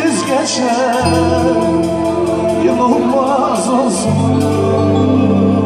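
Live halay dance music from a band: Korg synthesizer keyboards and electric guitar with singing over a steady percussion beat. The bass note changes about a second in and again about four seconds in, under a wavering, ornamented melody line.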